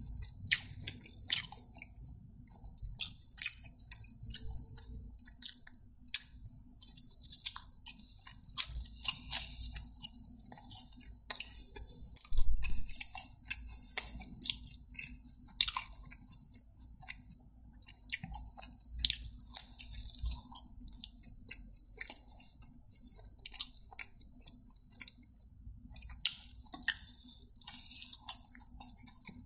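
A person chewing and biting food close to the microphone: crisp, crackly mouth sounds that come in clusters, with quieter spells in between.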